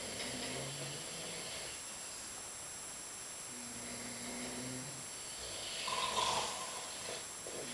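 Several men snoring in their sleep, one drawn-out snore after another, with a louder, rasping snore about six seconds in.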